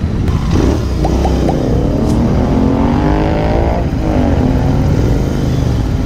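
Several Royal Enfield 650 parallel-twin motorcycle engines revving, their pitches rising and falling over one another above a steady rush of noise.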